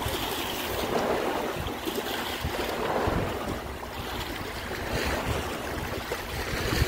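Fast, churning river water rushing steadily, with gusts of wind buffeting the microphone.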